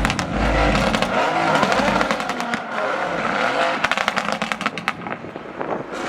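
Car engine revving up and down, with a rapid run of sharp crackles around the middle.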